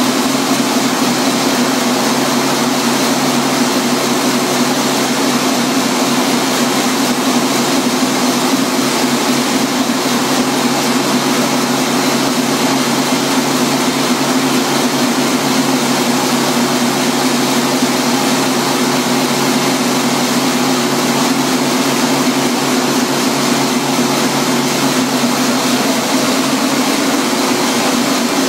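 Engine-generator set of a 200 kW gasification power plant, a large inline multi-cylinder engine driving a generator, running steadily at constant speed. It gives a loud, even engine sound with a steady low hum.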